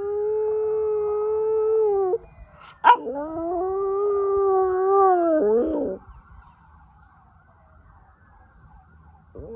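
Corgi–Chihuahua mix dog howling: two long, steady howls, the second ending in a falling waver about six seconds in. Another howl starts right at the end.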